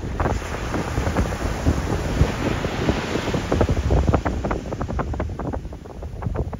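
Atlantic Ocean waves breaking on a sandy beach, the whitewater rushing up the shore and swelling to its loudest about three seconds in before easing near the end. Wind buffets the microphone in short gusts over the surf.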